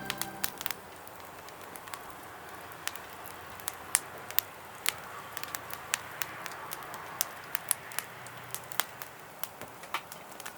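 Wood fire crackling in a fire stand: a soft steady hiss with irregular sharp pops and snaps, about three a second.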